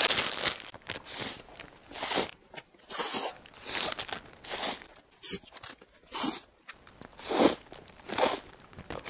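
Close-miked eating sounds of Indomie Mi Goreng instant fried noodles: the plastic packet tearing open at the start, then a string of short slurps and chews, about one a second, as mouthfuls are taken straight from the packet.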